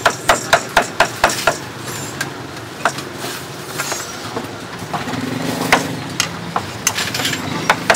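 Knife chopping on a cutting board: a quick run of knocks, about four a second, at the start and again near the end, with scattered single knocks between. A motor hums in the background around the middle.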